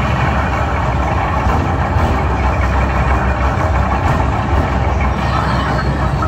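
Mad Max slot machine's bonus-wheel sound effects: a loud, steady, engine-like drone with a heavy low rumble as the wheel spins.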